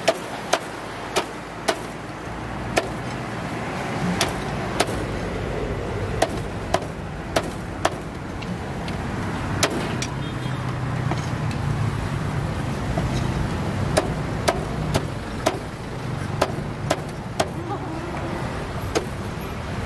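Cleaver chopping on a wooden cutting board: sharp, irregular knocks about one or two a second, over a steady low rumble that grows louder about halfway through.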